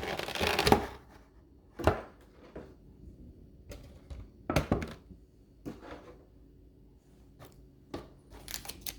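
Plastic wrapping on a cardboard card collection box rustling, then scattered thunks and clicks as the box is handled and opened.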